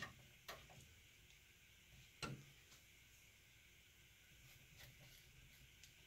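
Near silence broken by a few faint, short clicks, the sharpest about two seconds in: a screwdriver snugging the motherboard's screws into the case standoffs.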